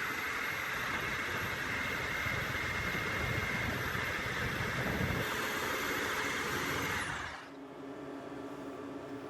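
An electric power tool motor running steadily with a high whine. About seven seconds in it is switched off: the whine falls away and a quieter steady hum remains.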